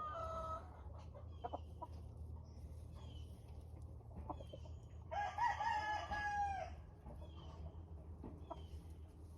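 A hen crowing once, a drawn-out call of about a second and a half starting some five seconds in, with short clucks and chirps before and after it.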